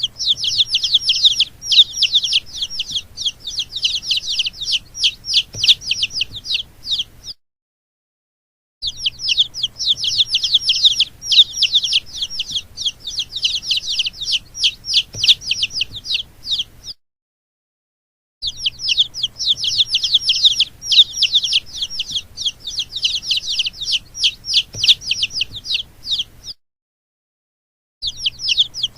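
Baby chicks peeping: a dense run of rapid, high-pitched peeps, each falling in pitch, several a second. The peeping comes in three stretches of about eight seconds each, cut by short spells of total silence.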